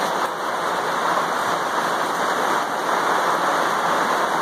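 Steady rushing noise, even and unbroken, with no distinct knocks or tones.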